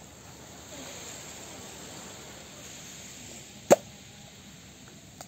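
A single sharp knock about three and a half seconds in: a green coconut brought down onto a wooden tree stump, over a steady faint hiss.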